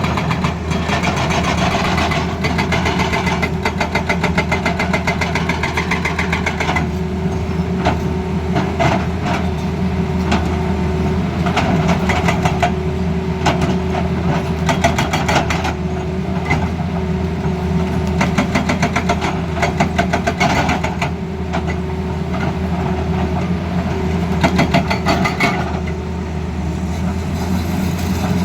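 Tata Hitachi excavator's diesel engine running steadily under a hydraulic breaker hammering with rapid blows, in stretches with brief pauses.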